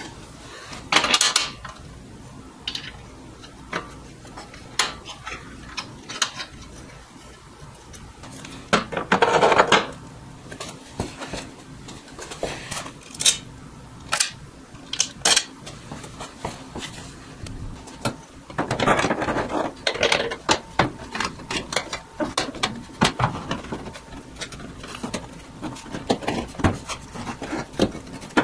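Metal gauges being handled and fitted into an aluminium dashboard panel: irregular clinks and taps, with three longer scraping stretches, about a second in, around the middle, and about two thirds of the way through.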